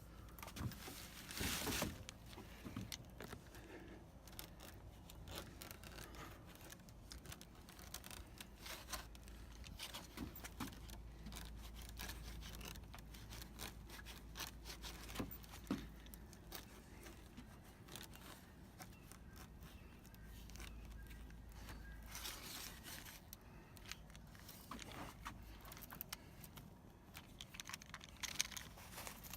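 Light scraping and small metallic rattling clicks of metal screen mesh being worked as the spline is pressed into the screen door frame's channel. There is a louder scrape about a second and a half in, and more around two-thirds of the way through.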